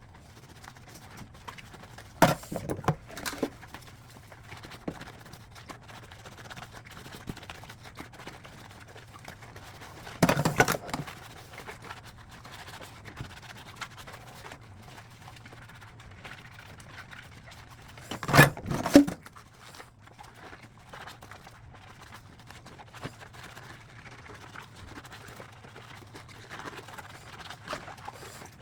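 Dishes and utensils clattering and scraping during hand dishwashing, with a few louder clatters: a pair a couple of seconds in, one around a third of the way through, and the loudest double clatter about two-thirds of the way in.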